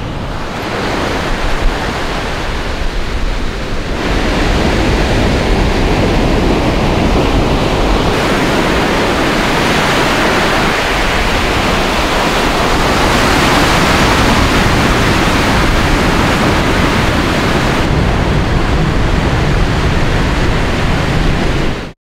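Ocean surf breaking and washing in, a steady rush of waves that gets louder about four seconds in.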